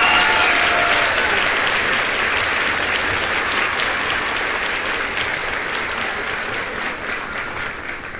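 Applause, loudest at first and fading out gradually, marking a well-made shot.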